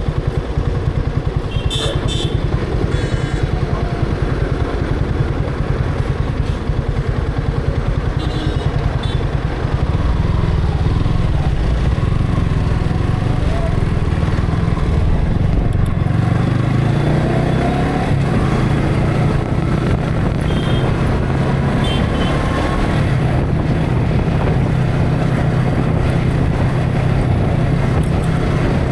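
Yamaha R15 V3's single-cylinder engine running under way, heard through an action camera's built-in microphone with wind noise. It gets louder about ten seconds in, and the engine pitch rises and falls as the bike speeds up and eases off.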